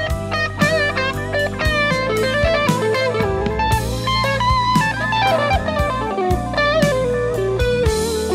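Rangka Professor S Version 2 Strat-style electric guitar played through an amplifier: a picked lead line mixing quick runs of notes with bent notes held with vibrato.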